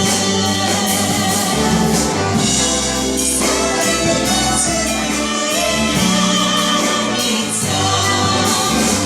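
Estrada-jazz orchestra playing a full, steady arrangement of a pop song, with sung voices held within it.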